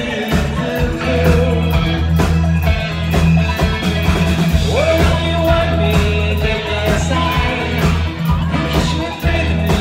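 Live rock band playing through a club PA: a steady drum beat, bass, keyboards and electric guitar, with a male singer's voice over it, heard from within the audience.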